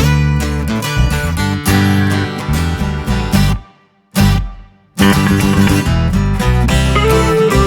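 Background music led by strummed guitar, with a brief break about four seconds in.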